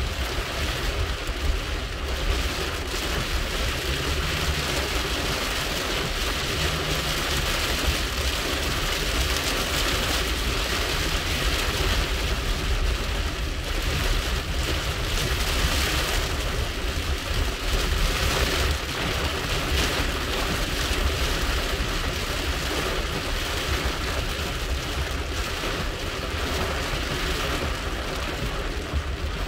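Heavy rain drumming on a car's roof and windshield, heard from inside the cabin, over a steady low rumble of the moving car.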